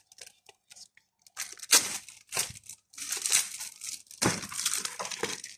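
Plastic packaging crinkling and tearing in irregular bursts as a toy launcher is pulled out of it by hand.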